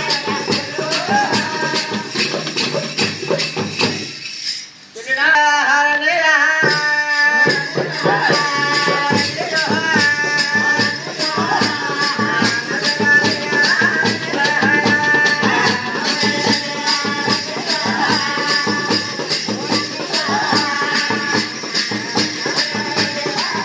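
Live folk music with a quick, steady beat from small hand cymbals and a frame drum. After a short drop about four and a half seconds in, singing with long held notes joins the percussion.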